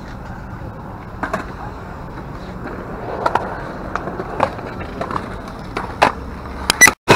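Skateboards rolling on a concrete skate park, with a sharp clack or knock from the boards every second or so. The sound cuts off abruptly just before the end.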